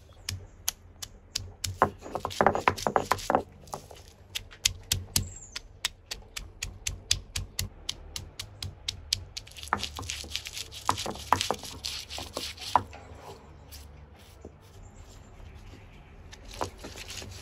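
Stone roller knocking and crushing green chillies on a flat stone grinding slab: a run of sharp knocks and crunches, busiest about two seconds in and again near the middle, with scattered single knocks between.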